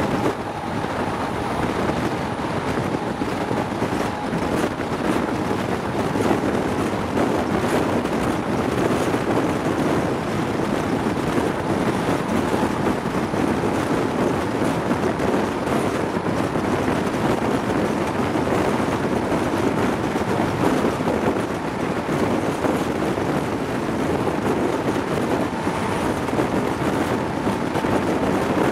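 Wind rushing over a microphone held out of a high-speed train's window, mixed with the steady running noise of the HST on the rails at speed. The noise stays steady, with no distinct events.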